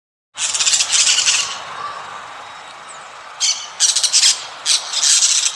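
Birds squawking in short, harsh bursts: two near the start, then a quieter stretch, then a run of four or five more toward the end.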